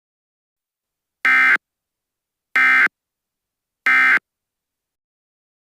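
Emergency Alert System end-of-message (EOM) data bursts: three short, identical, buzzy digital bursts a little over a second apart, signalling that the alert message is over.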